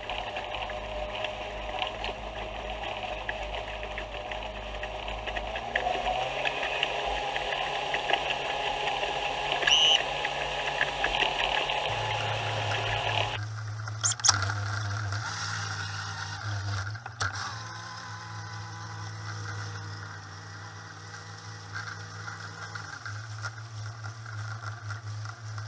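Mercury 75 hp four-stroke outboard driving a RIB at speed, under loud wind and water noise; its pitch rises about six seconds in. About halfway through, the sound changes abruptly: the outboard runs slowly and steadily, and the wind and water noise is largely gone.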